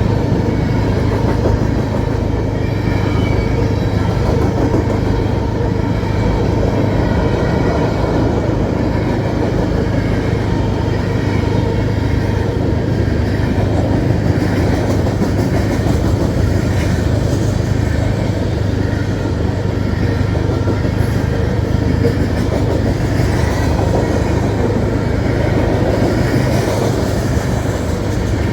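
Train rolling past steadily: a continuous rumble of wheels on rail with railcars going by.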